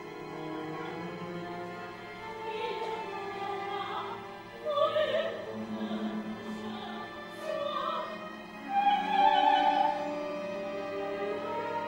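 Contemporary opera sung live with orchestra: held orchestral notes at first, then a solo operatic voice sings short phrases with vibrato over the instruments, swelling loudest about nine seconds in.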